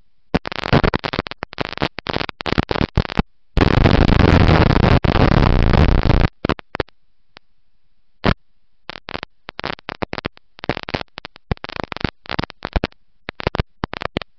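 Heavily distorted noise from a dirt-track race car's onboard camera audio. Harsh crackling cuts in and out in short bursts, with one solid stretch of about three seconds near the middle.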